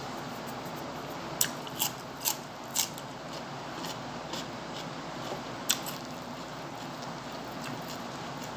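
Close-up crunching of crisp food being bitten and chewed: four sharp crunches in quick succession about a second and a half in, then one more near six seconds, over a steady low hiss.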